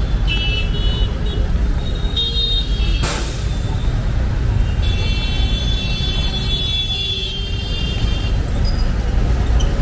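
Road traffic of cars and buses running past with a steady low rumble, high tones coming and going over it and a short hiss about three seconds in.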